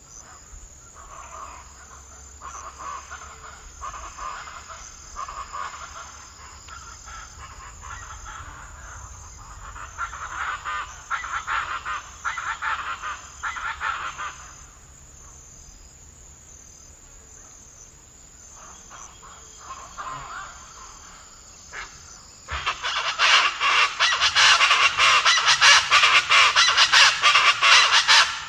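Birds calling in a group, first in a spell lasting over ten seconds, then louder in a dense burst of calls over the last five seconds, over a steady high-pitched insect trill from crickets.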